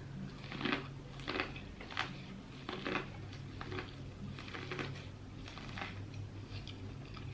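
Close-up eating sounds: soft, irregular chewing and mouth smacks, about one or two a second, over a steady low hum.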